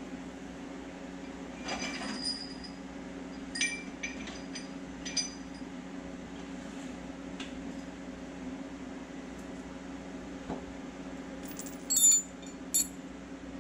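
Small metal parts and tools clinking and ringing as bolts are handled during a skid plate install: a few clinks about 2 s in, several more around 4 to 5 s, and the loudest cluster near the end, over a steady low hum.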